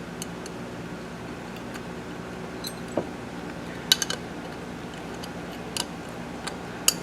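Small metal hardware clinking and ticking as a bolt, lock washer and bracket are handled and fitted onto an oil catch can. A few sharp clicks come about four seconds in and again near the end, over a steady hum.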